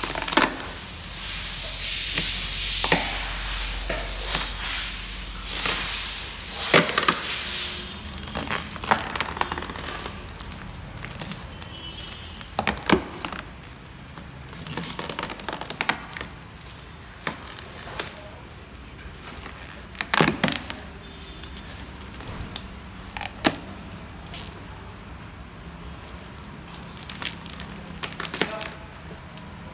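3M paint protection film being peeled by hand off a car's painted bumper: sharp crackles, pops and crinkles of the clear plastic film at irregular moments every few seconds. A steady hiss runs under the first eight seconds and stops suddenly.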